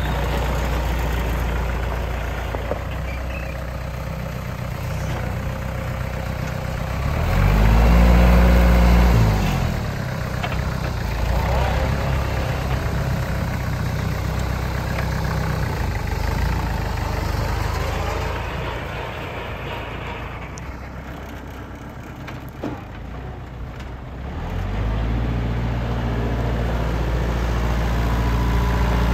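Kubota L4300F compact tractor's diesel engine running as it is driven, revving up and easing back down about eight seconds in. The engine sound drops off for a few seconds around twenty seconds in, then rises again and stays steady to the end.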